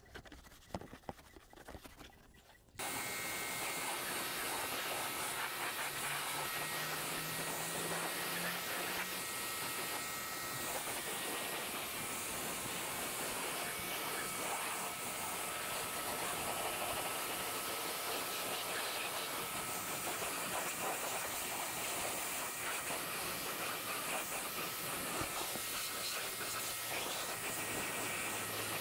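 Pressure washer jet spraying water onto a motorcycle to rinse off wash foam: a steady, loud hiss that starts suddenly about three seconds in.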